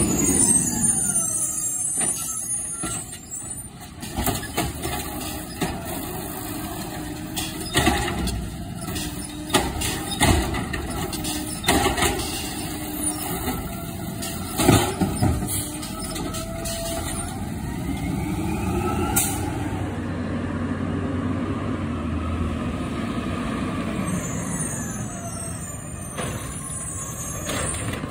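Automated side-loader garbage truck collecting wheeled carts. Its engine runs while the hydraulic arm grabs, lifts and dumps the carts, with repeated knocks and bangs through the middle, rising and falling whines, and a sharp air-brake hiss about two-thirds in.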